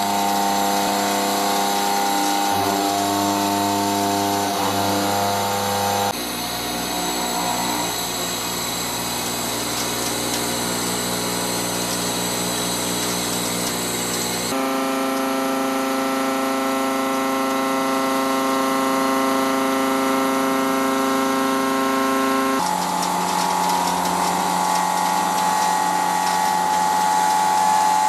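A face mill on a 5-axis CNC machining center's spindle cutting steel: a steady, loud, multi-tone machining whine with cutting noise. The pitch changes abruptly three times as the cut switches to another cutter size and feed.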